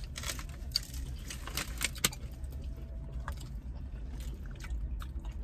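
Small clicks, taps and rustles of people eating corn dogs and handling their paper holders, over a steady low rumble in a car cabin; one sharper click about two seconds in.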